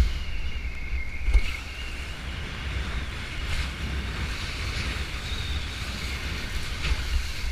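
Wind buffeting the microphone of a kitesurfer's action camera, over the rush of water from the board riding through choppy surf. There is a thump right at the start and another about a second and a half in.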